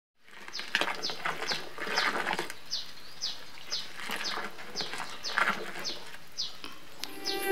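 Indigo dye liquor sloshing and splashing in surges as a paddle beats it into a froth, with a small bird repeating a short high downslurred peep about twice a second.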